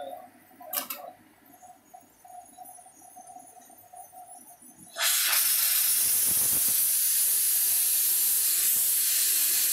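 Glassworking torch flame on a glass lathe, a loud steady hiss that starts suddenly about halfway through as the burner is turned up. Before it, a single sharp click about a second in.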